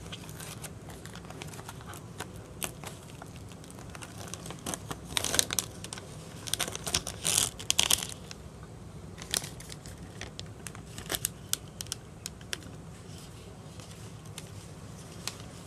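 Plastic packaging of a chilled noodle bowl being opened and handled: irregular crinkling and crackling of plastic, busiest around the middle, over a low steady hum.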